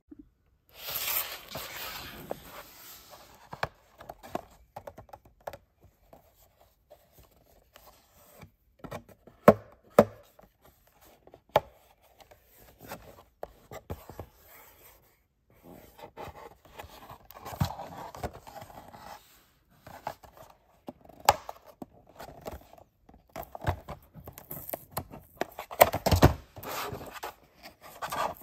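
Hands handling a Hot Wheels blister-card package: the cardboard backing and clear plastic blister rustle and crinkle, with scattered sharp taps and clicks.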